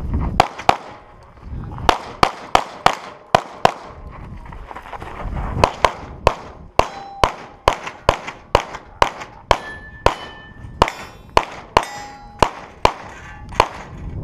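Rapid pistol fire at steel plate targets: a fast string of shots with ringing clangs as the plates are hit. It comes in two runs, about ten shots, a pause of about two seconds, then a longer run of roughly twenty.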